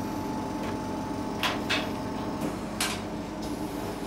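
Handling noises as an anaesthetised dog's legs are tied down on the operating table: three short, sharp scrapes or clicks between about a second and a half and three seconds in, over a steady hum.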